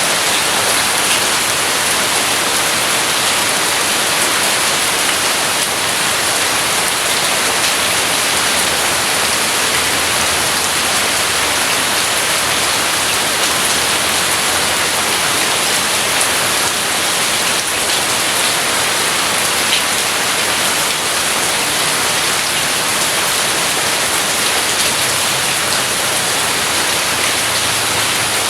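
Rain falling steadily, a dense even hiss of drops.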